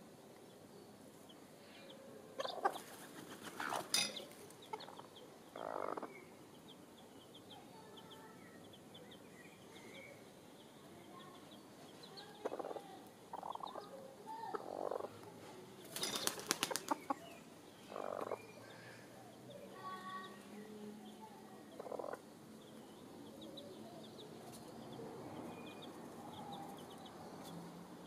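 Chickens dust-bathing in dry soil and bark mulch: short bursts of scratchy rustling as they shuffle and shake their wings through the dirt, with a quick flurry of them about two-thirds of the way in. Faint soft clucks and peeps come between the bursts.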